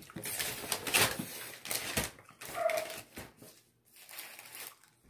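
Rustling and light knocks of food and its wrapping being handled on a plate, with one brief high whimper about two and a half seconds in.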